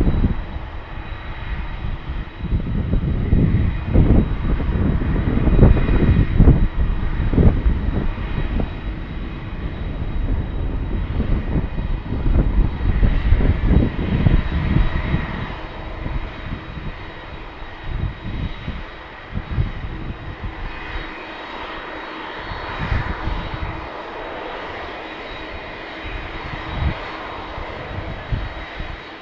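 Airbus A319CJ's twin CFM56 turbofans running at taxi power as the jet turns on the runway: a steady engine whine with a few held tones over a gusty low rumble. The rumble is heaviest in the first half and eases after about halfway, leaving a steadier roar.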